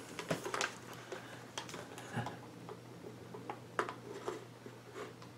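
Knife cutting and scoring the thin plastic of a pop bottle, with the bottle handled and flexed: scattered faint crackles, scratches and clicks, a few sharper ones about a second and a half in and near four seconds in.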